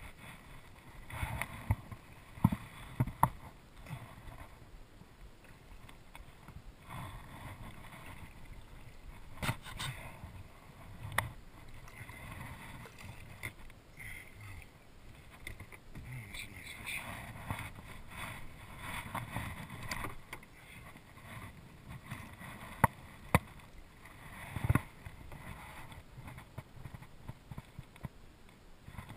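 Water splashing and sloshing beside a kayak as a hooked redfish is drawn alongside and landed by hand, with scattered sharp knocks against the hull in short clusters near the start, about ten seconds in and again a few seconds before the end.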